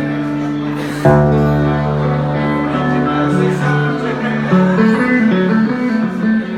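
A band playing an instrumental intro led by guitar; the whole band comes in together with bass about a second in, then a guitar line moves up and down over held chords.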